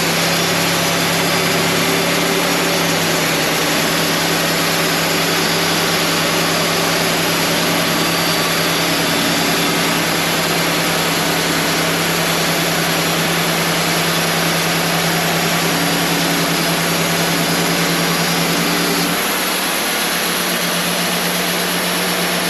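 Wood-Mizer LT35 portable sawmill running steadily, its engine giving a constant low hum under a dense noise of the band saw. The sound shifts and drops a little about nineteen seconds in.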